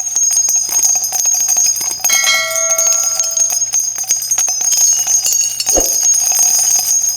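Bells jingling continuously, a dense, high, shimmering ring.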